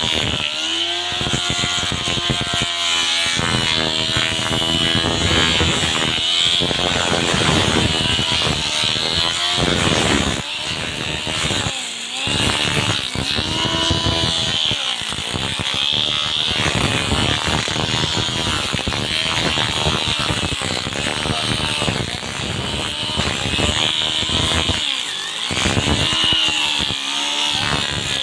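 Angle grinder converted into a wheeled grass cutter, running with welded iron blades and cutting through grass: a high motor whine whose pitch wavers up and down several times.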